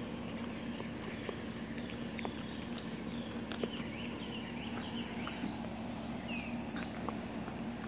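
Birds chirping: short high calls, coming thick and fast about halfway through, with one falling chirp later, over a steady low hum.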